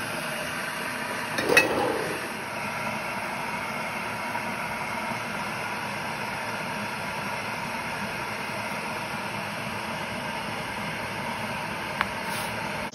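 Glass electric kettle heating water, a steady rushing hiss. A single knock comes about a second and a half in, and a short click near the end.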